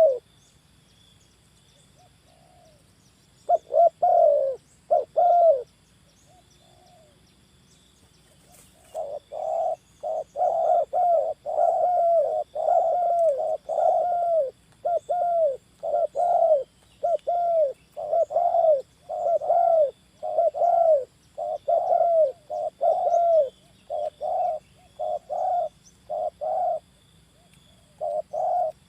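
Spotted doves cooing: short coos that bend down in pitch, a few about four seconds in, then a long, steady run of them from about nine seconds in, roughly one and a half a second.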